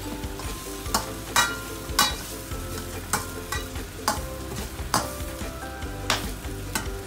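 Egg noodles sizzling in a stainless steel wok while a metal spatula stirs and pushes them, scraping and knocking against the pan about once a second.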